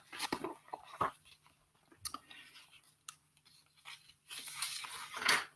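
Paper and a book being handled close to the microphone: scattered crackles and small taps, then about a second of paper rustling near the end.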